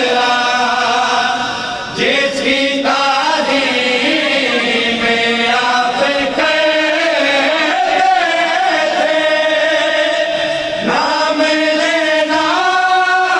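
Male voices chanting a noha, a Shia mourning lament, in long held melodic lines. The chant breaks briefly about two seconds in and again near eleven seconds as each new line begins.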